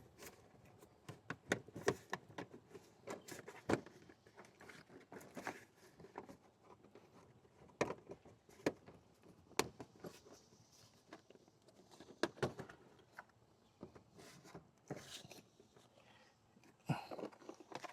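Faint, irregular clicks and knocks of hands handling a car's plastic headlight housing and cover as it is fitted back on after a bulb change.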